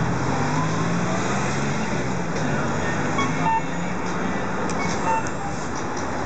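Steady street traffic noise with a vehicle engine running low underneath, and a few short high beeps in the second half.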